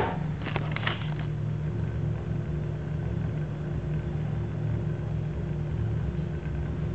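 Steady low hum of a small motor, with a few short clicks in the first second.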